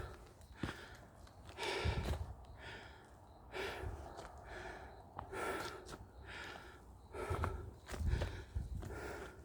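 A hiker's heavy breathing while climbing a mountain trail: a hard breath every second or two, with footsteps between.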